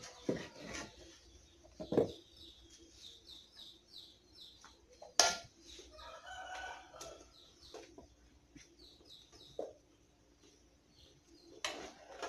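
A spoon knocks and scrapes against a large aluminium pan and baking tray as a thick peanut candy mixture is spooned out and spread, with a few sharp knocks, the loudest about five seconds in. Chickens cluck and small birds chirp in the background.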